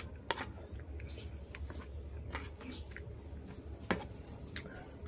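Metal spoon clinking and scraping against a plate of rice, mixed with soft chewing. There are two sharper clinks, one just after the start and one about four seconds in, over a steady low hum.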